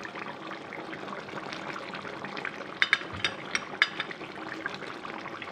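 Chicken curry gravy bubbling in a pan on high flame: a steady hiss, with a run of sharp pops and crackles a little under three seconds in.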